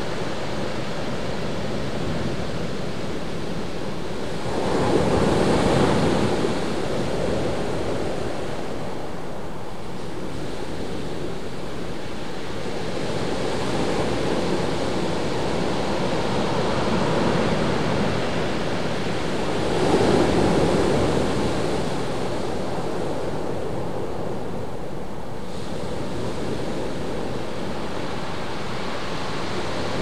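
Ocean surf washing on a beach: a steady rush of water, with louder waves surging in about five seconds in and again about twenty seconds in.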